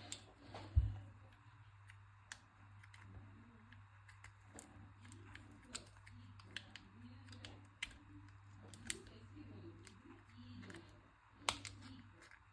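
Scattered sharp clicks and taps of small magnets and metal parts from a dismantled counterfeit AirPod being picked up and set down on a work surface, over a steady low hum.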